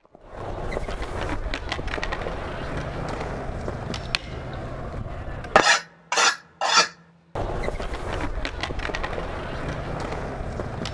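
Skateboard wheels rolling on smooth concrete: a steady rumble with scattered clicks and knocks. About halfway through, the rolling breaks off for three short, loud, hissy bursts of noise, then resumes.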